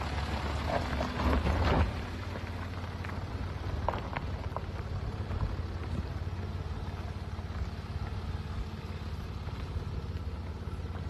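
Land Rover Discovery 4 engine running low and steady as the SUV drives slowly past and crawls up a dirt track, loudest in the first couple of seconds. Tyres crunch on gravel, and a few small stones click about four seconds in.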